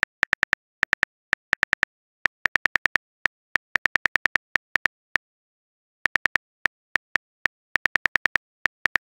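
Phone-keyboard typing clicks from a texting-story app's typing sound effect. A long run of short, identical taps comes at an uneven typing pace, with a pause of about a second around five seconds in.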